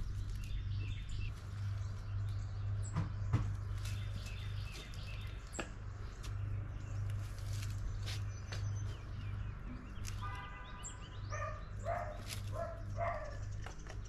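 Rocks clicking against each other a few times as they are handled, over a steady low hum, with birds chirping; from about ten seconds in a dog barks several times.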